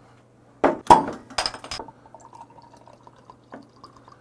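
Glass bottles knocking and clinking sharply four or five times in quick succession. Then beer is poured from a bottle into a glass that already holds soju, a faint uneven trickle, as a soju-and-beer mix is made.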